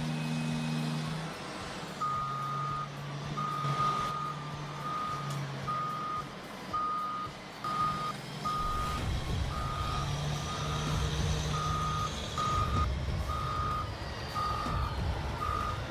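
Reversing alarm on a heavy machine beeping repeatedly, roughly once every half second or so, over a diesel engine running. The engine gets louder about halfway through.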